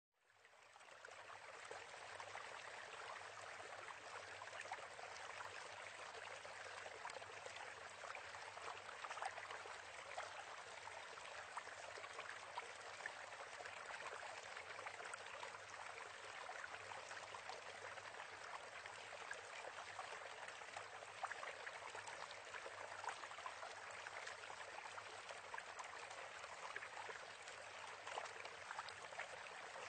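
Steady trickling and bubbling of aquarium water with many small crackles, fading in over the first second.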